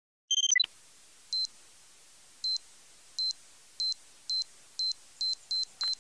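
A short electronic chirp, then a run of single high electronic beeps that come faster and faster, in the manner of a time-bomb countdown sound effect.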